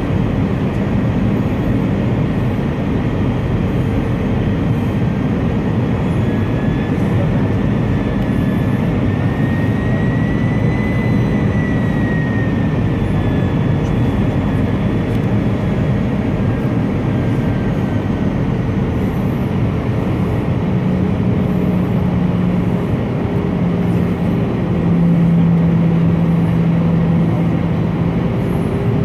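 Airbus A319 cabin noise on descent, heard from a window seat beside the engine: a steady dense rumble of engine and airflow. A faint whine rises and falls slightly in pitch midway through, and the noise swells a little in the second half.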